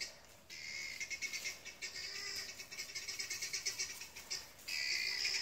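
A rapid, high-pitched pulsing trill from a calling animal, repeating at about ten pulses a second. It drops out briefly about half a second in, eases just before the end, then comes back louder.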